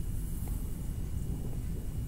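Steady low rumble of room background noise, with faint scratching of a pen or marker drawing on paper in the first half second.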